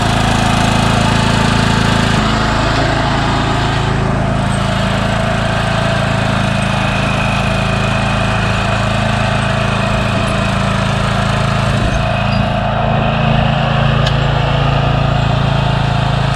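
Small single-cylinder engine of a 36-inch commercial walk-behind mower running steadily at a constant speed.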